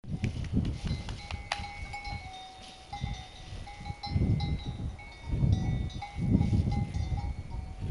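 A livestock bell clanking on and off, ringing clearly in short repeated strokes, over louder low rumbling bursts.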